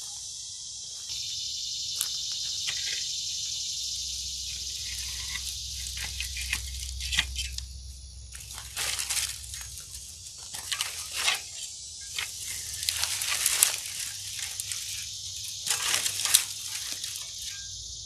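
A rake dragging through dry brush and twigs in irregular strokes, scraping and crackling, starting a few seconds in. A steady high drone of insects runs underneath.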